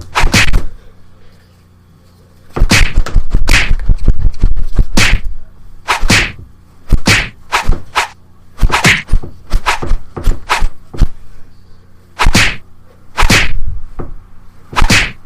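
A rapid, irregular series of sharp swishing whacks, about twenty in all, with a short pause after the first second.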